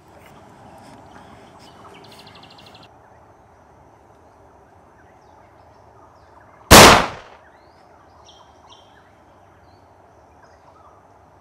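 A single loud handgun shot a little past halfway, sudden and dying away within half a second. Before and after it, quiet outdoor air with faint bird chirps.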